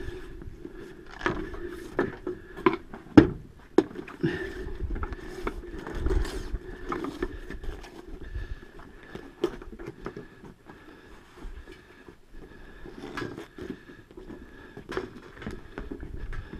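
A drain-jetting machine running steadily, with irregular knocks and clatter of hoses and fittings being handled, the sharpest about three seconds in.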